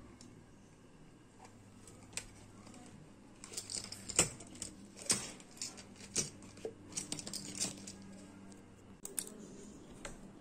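A run of light clicks and taps of small hard objects being handled, bunched between about three and a half and eight seconds in, over a faint low hum.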